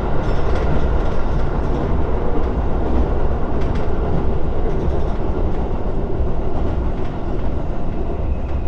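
Electric commuter train running over a steel truss bridge, heard from inside the carriage: a loud, steady rumble of wheels and bridge deck, with a few sharp clicks from the track.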